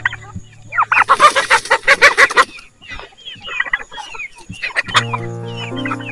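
A large flock of chickens clucking and squawking: a loud, dense burst of overlapping calls about a second in, then scattered clucks. Background music comes in near the end.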